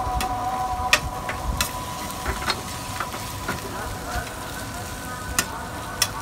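Metal spatula scraping and knocking against a stainless-steel Saladmaster electric skillet as beef chunks with onions and garlic are stirred, with irregular sharp clicks about ten times. Under it the meat sizzles lightly, browning in its own fat without added oil.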